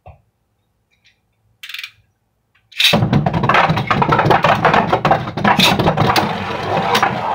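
Two Beyblade Burst spinning tops launched into a plastic stadium about three seconds in: a sudden loud clatter, then a continuous rattling scrape as they spin across the plastic floor, with repeated sharp clicks as they hit each other and the walls.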